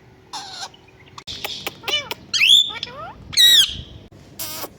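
Pet ringneck parrot calling: a harsh squawk, then a run of loud, shrill calls sliding up and down in pitch, and a final harsh squawk near the end.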